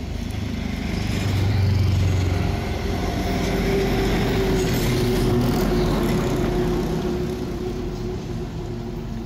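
A motor vehicle's engine running on the road close by, a low rumble that swells over the first two seconds, stays loud, then eases off toward the end as it passes.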